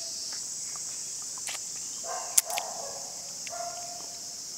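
Steady, high-pitched insect chorus, with a few soft wet clicks and slurps in the middle as a ripe wild mango is sucked through a hole bitten at its stem end.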